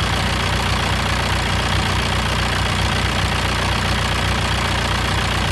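Freshly rebuilt four-cylinder diesel engine of a VW Passat B4 idling steadily just after its first start, running on all four cylinders.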